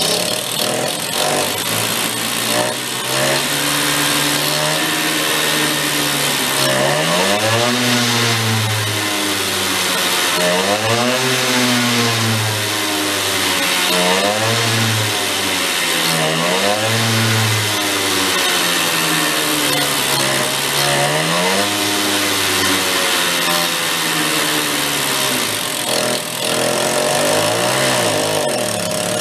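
The engine of a 1969 Benelli Buzzer 65cc mini bike, running and revved up and down with the throttle about half a dozen times.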